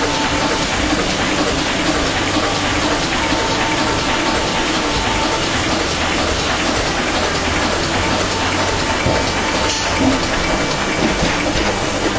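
A thermal computer-to-plate machine running: an even, steady hiss with a low hum underneath and a faint thin whine that comes and goes.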